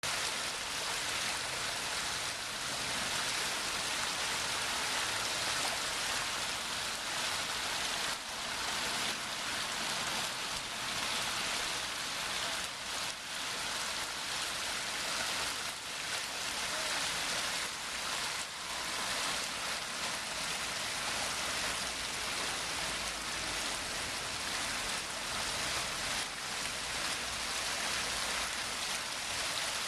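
Water splashing and trickling down a six-tier garden waterfall into a stream and pond, a steady even hiss.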